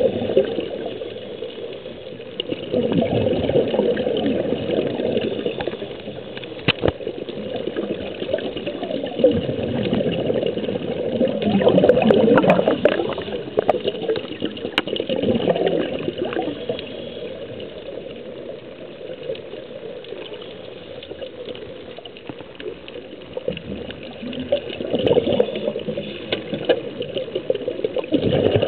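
Underwater: scuba divers' exhaled air bubbling out of their regulators in surges every few seconds, with a single sharp click about seven seconds in.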